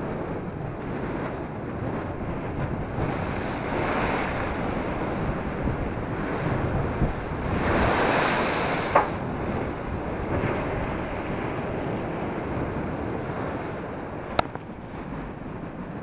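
Rough sea waves breaking and crashing against a concrete seawall, the surf rising in surges and loudest about eight seconds in as a wave throws up spray, with wind buffeting the microphone throughout. Two short sharp knocks stand out, one about nine seconds in and one near the end.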